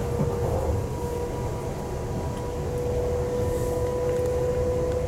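Cabin running noise of a Class 350 Siemens Desiro electric multiple unit at speed: a low rumble of wheels on track with a steady whine from the traction equipment, a little stronger in the second half.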